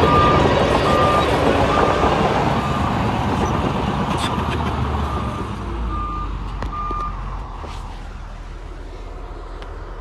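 Backup alarm on heavy construction machinery beeping about once every 0.8 seconds, over a diesel engine that fades steadily. The beeps stop about seven seconds in.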